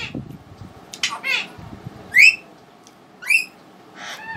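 Short, high-pitched calls from a small animal, each rising in pitch, four of them about a second apart, over faint sounds of fingers working rice on a plate.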